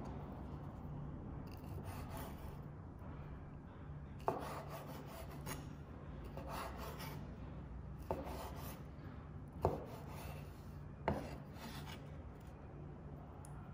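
Kitchen knife slicing along the backs of peeled raw shrimp on a wooden cutting board, butterflying them: a series of short scraping strokes, with four sharp knocks of the blade on the board.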